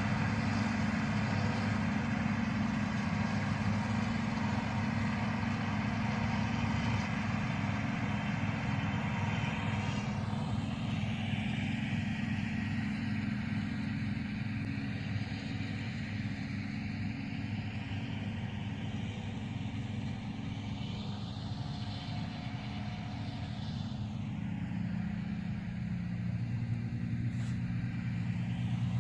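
Tractor-drawn forage harvester running steadily in a grass field, a low, even engine hum. A faint whooshing sweep rises and falls in the upper range through the second half.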